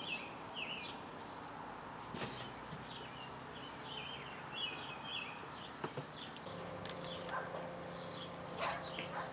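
Birds chirping with short, repeated high chirps throughout, with a few light knocks; a faint steady hum comes in about two-thirds of the way through.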